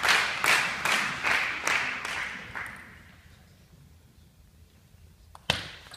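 Crowd clapping in unison, about two to three claps a second, dying away in the first half. After a quiet moment, sharp clicks of a table tennis ball being hit and bouncing on the table come near the end.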